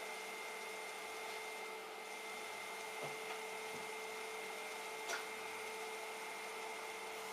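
Steady machine whir in an engine dyno cell, with a constant high whine running through it; a single light knock about five seconds in.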